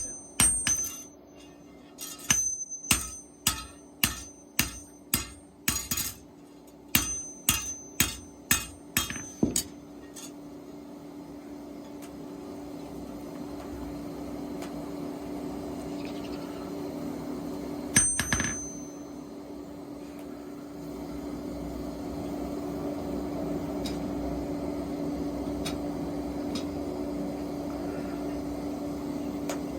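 Blacksmith's hammer striking metal on an anvil, ringing, about two blows a second in short runs, which stop about ten seconds in. A steady hum with one low tone then takes over, with a single further strike a little past the middle.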